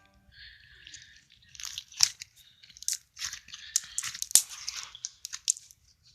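Stretchy homemade slime being stretched and squeezed by hand, giving off irregular small crackling clicks and pops.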